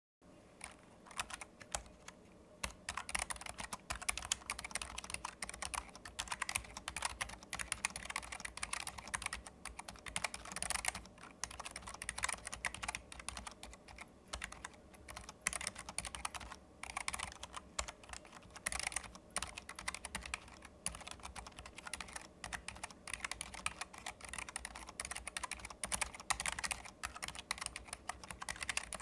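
Continuous typing on a Keychron low-profile mechanical keyboard fitted with white linear optical switches. The keystrokes are light, quick and irregular, with many strokes a second and no tactile bump or click mechanism.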